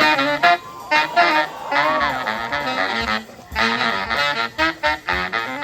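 Marching band playing, horns over drums, in short punchy phrases, with one held note bending up and back down about two seconds in.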